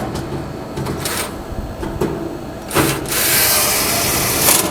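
Cordless drill/driver running a screw into the dryer's heater assembly: brief spurts, then one steady run of about a second and a half that stops near the end.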